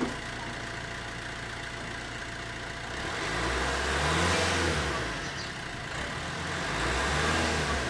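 Maruti Swift Dzire's 1.3-litre DDiS four-cylinder diesel idling at the tailpipe, then revved twice, the pitch rising and falling back to idle each time, about three seconds in and again near the end.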